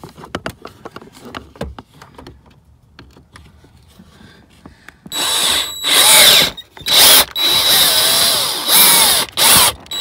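Cordless drill with a 5/16-inch bit boring through plastic console trim, run in about six short bursts through the second half. The motor pitch sags and recovers under load. Before that there are only light handling clicks.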